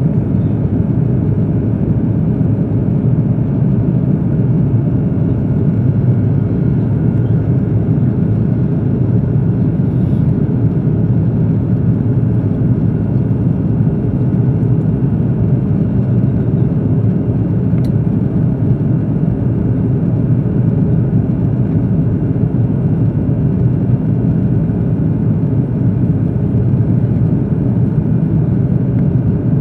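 Steady, loud drone of an Airbus A330-200's engines and airflow heard inside the passenger cabin, a deep rumbling noise with no change in level.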